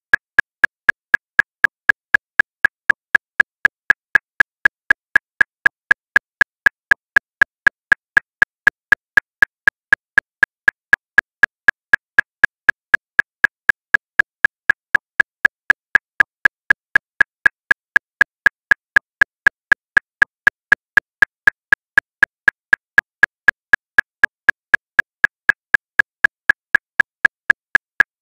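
Metronome clicking at 239 beats per minute: a fast, even train of identical sharp clicks, about four a second, with no accented beat.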